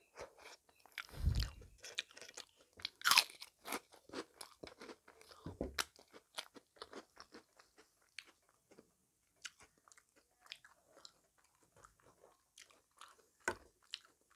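A person chewing food close to the microphone: irregular wet mouth clicks and crunches, with a few louder crunches in the first six seconds.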